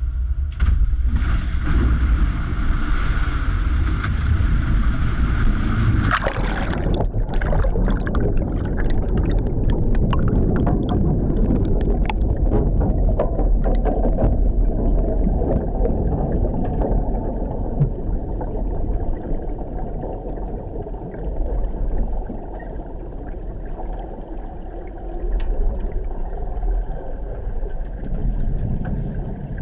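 Loud rushing, churning water with a bright hiss that cuts off about six seconds in, leaving a muffled, churning rumble with scattered clicks and gurgles.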